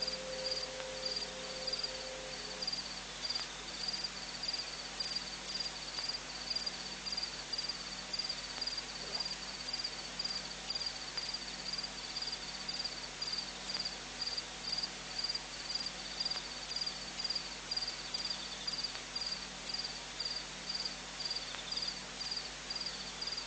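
Insects chirping in a steady rhythm, about two high chirps a second, over a faint low hum.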